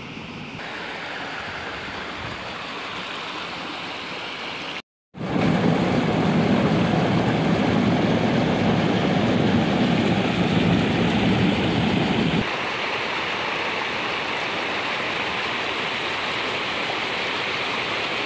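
Rushing water from a small cascade spilling into a lake, a steady rush with no pitch. It is softer at first, jumps much louder and fuller about five seconds in, then drops back to a thinner, hissier rush about two thirds of the way through.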